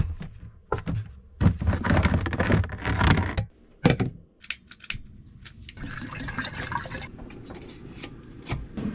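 Water poured into a container for a few seconds, then a few sharp clicks, then the hiss of a Jetboil gas canister stove being lit, settling into a steady low burner hiss near the end.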